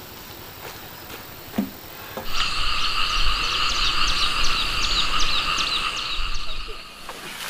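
Dense chorus of calling frogs and insects. It starts suddenly about two seconds in and cuts off about half a second before the end. A couple of faint knocks come before it.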